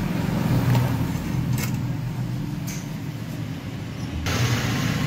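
Steady low rumble of background noise with a few faint clicks; about four seconds in, a hiss starts and continues.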